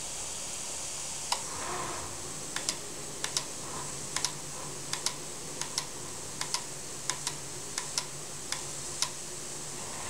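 Airbrush robot at work: a steady hiss with a faint low hum, and from about a second in some twenty sharp mechanical clicks at irregular intervals, often in quick pairs.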